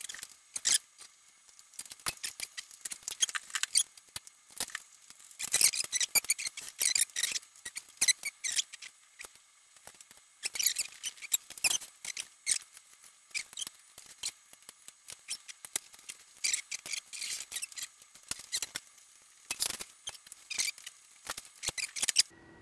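Irregular light metallic clicks, taps and rattles, coming in clusters, as the housing and keyboard cover are taken off a 1957 Friden STW-10 mechanical calculator.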